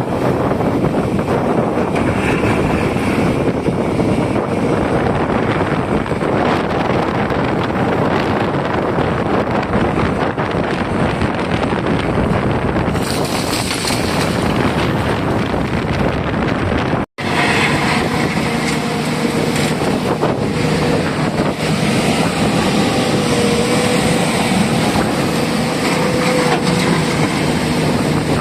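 Heavy diesel machinery running steadily, with wind buffeting the microphone. About seventeen seconds in the sound drops out for an instant, and afterwards a steady engine hum stands out more clearly.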